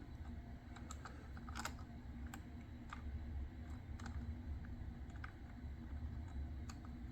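Scattered light clicks and taps of small machine parts and a control cable being handled and fitted by hand, over a faint steady low hum.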